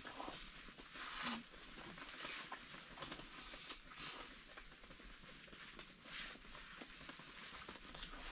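Quiet chewing and rustling of a man eating, coming in short scattered bursts.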